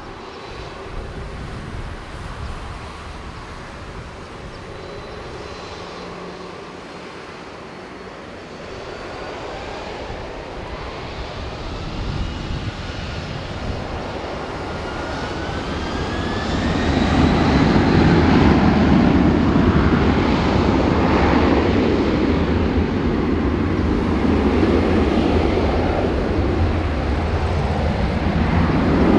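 Boeing 767-300 freighter's twin jet engines spooling up for takeoff: a rising whine over several seconds. From about seventeen seconds in comes loud, steady jet noise as takeoff thrust is set and the takeoff roll begins.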